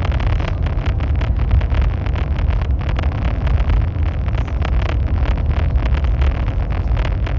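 High-speed train running at speed: a steady low rumble and rushing noise, with frequent small clicks and rattles.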